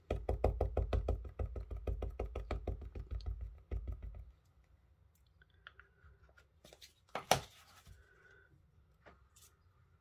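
Ink pad tapped rapidly and repeatedly onto a rubber stamp mounted on a clear acrylic block, inking it, for about four seconds. After that come a few light clicks and one sharp knock about seven seconds in.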